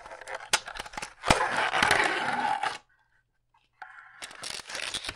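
Clear plastic blister packaging scraping and crackling against a cardboard box as it is slid out, with a sharp click a little over a second in. The handling stops for about a second, then resumes more quietly.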